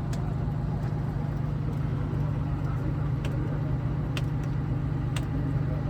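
Diesel truck engine running at a steady idle, with a few sharp clicks or taps over it.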